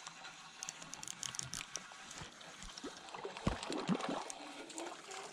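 Light, irregular splashing and dripping water with small ticks as a just-hooked rainbow trout is landed.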